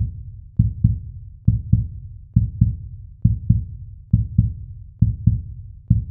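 Heartbeat sound effect: paired low thumps, lub-dub, repeating steadily about once every 0.9 seconds.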